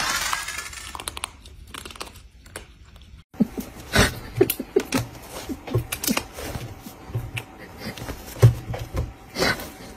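Quick, irregular taps and knocks from a cat and a person's hand scuffling on a desk over a spiral notebook, starting about a third of the way in after a brief cut.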